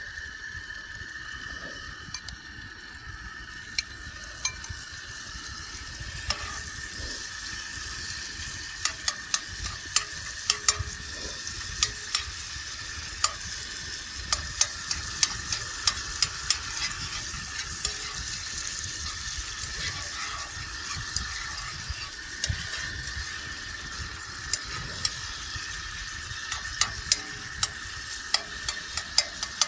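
Chopped chicken breast frying in butter in a hot cast iron pan, with a steady sizzle. As it is stirred with a spoon, many sharp clicks come and go, thickest from about eight seconds in.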